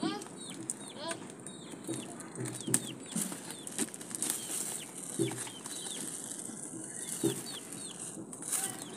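Birds chirping with many short rising and falling calls, mixed with lower, louder clucking calls a few times, and occasional light taps and scrapes of a hand on a taped cardboard parcel.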